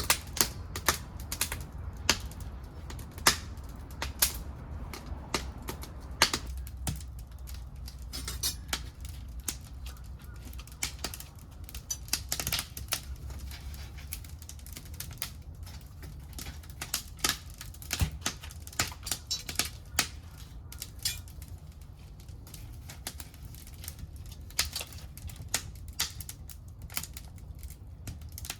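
Wood fire in a secondary-combustion wood stove crackling hard, irregular sharp snaps and pops several a second over a steady low rumble, from pieces of an old wooden futon chest burning.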